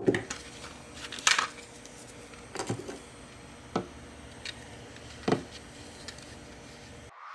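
Small hard objects, likely 3D-printed plastic clock parts, being handled: a string of light, irregular clicks and clacks, the loudest about a second in and again near five seconds in, over a faint steady hum.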